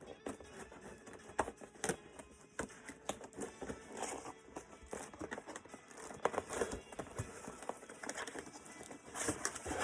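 Cardboard shipping box being opened and unpacked by hand: irregular rustling, scraping and knocks of cardboard flaps and the smaller boxes inside.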